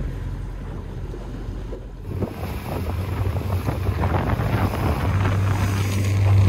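Fishing boat's engine running with a steady low hum, with wind and water noise. About two seconds in the sound changes abruptly to louder wind buffeting on the microphone over the engine hum.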